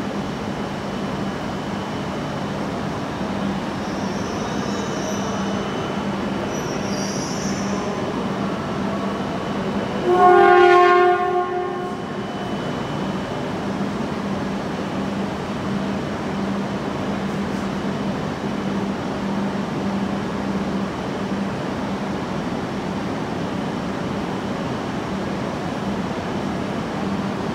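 A shinkansen horn sounds once, a single pitched blast of about a second and a half, about ten seconds in, while the red E6 series Komachi closes in to couple with the E5 series Hayabusa. Under it runs the steady noise and low hum of the trains standing at the platform.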